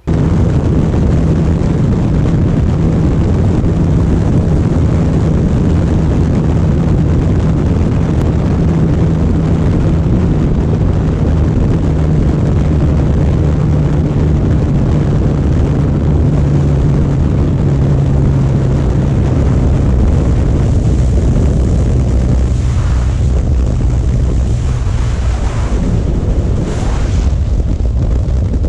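Sport motorcycle running at speed, its engine holding a steady note under heavy wind noise on the microphone.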